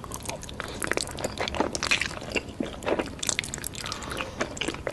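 Close-miked chewing: a person eating with a rapid, irregular run of wet smacks and crunchy clicks.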